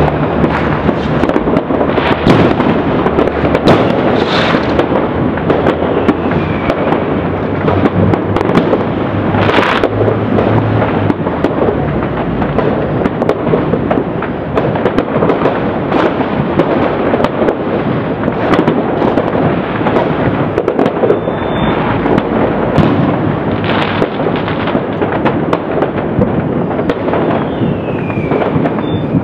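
Many fireworks and firecrackers going off at once, a dense, unbroken crackle of pops and bangs with scattered louder reports. Two short falling whistles cut through, about a quarter of the way in and again near the end.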